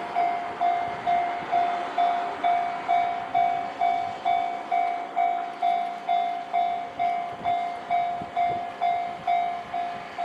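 Japanese railway level crossing's electronic warning bell, dinging steadily a little over twice a second. It signals that a train is approaching and the barrier is down.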